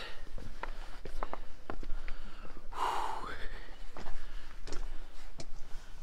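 A person's loud breath, a sharp snort-like exhale, about three seconds in, among scattered light clicks and taps of footsteps on a stony floor.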